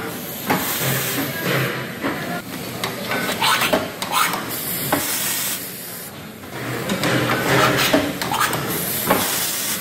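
Automatic rotary pouch-filling machine running, filling and indexing pouches of marinated chicken. Repeated hissing bursts with clacks and rattles come every second or so.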